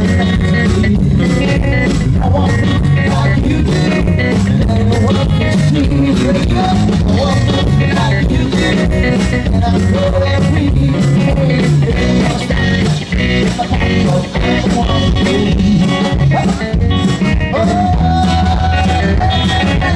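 Live band playing an upbeat pop-rock song, with guitar, bass and drums keeping a steady beat.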